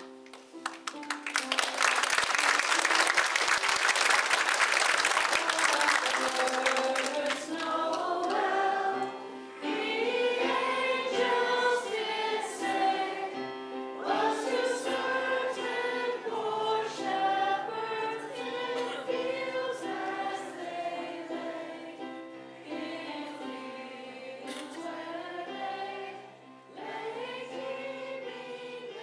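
Audience applause for about the first seven seconds, then a group of children singing a song together over instrumental accompaniment.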